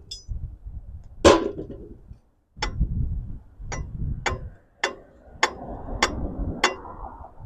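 Hand-tool work on the bolts: a series of sharp metallic clicks, evenly spaced a little over half a second apart in the second half, over low handling noise.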